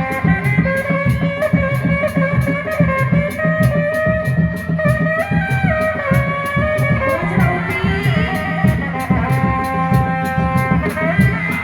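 Jaranan accompaniment music: drums keep a fast, steady beat under regular high metallic ticks, while a held melodic line steps and slides in pitch above.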